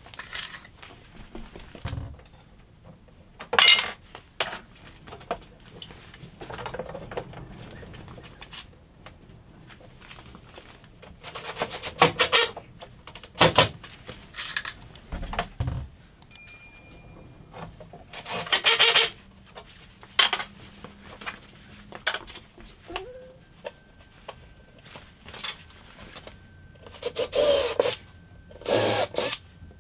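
Cordless drill driving screws into wooden wall battens in several short bursts, with knocks and handling noise in between.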